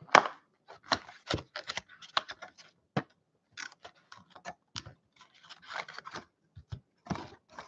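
Cardboard hobby box and foil-wrapped trading card packs being handled on a table: a quick, irregular run of short taps, scrapes and crinkles as the packs are pulled out of the opened box.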